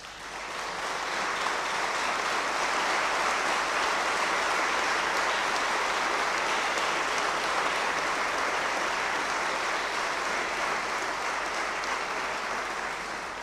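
A chamber full of legislators applauding: the clapping swells within the first second or so, holds steady, and dies away near the end.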